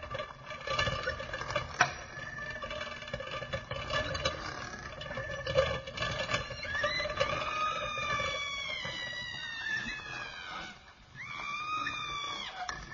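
Layered horror sound-effect ambience: a rough, noisy stretch with a steady drone, then from about halfway long, high, drawn-out wails that slowly fall in pitch. One wail breaks off near the end and another begins.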